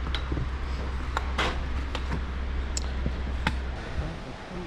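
Footfalls and sharp, irregular taps of a hiker on a rocky trail, about seven in all, over a steady low rumble that stops near the end.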